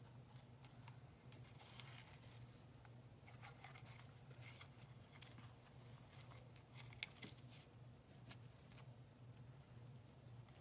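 Near silence over a low steady hum, with faint rustling and a few small clicks as ribbon is handled and knotted onto a craft tag.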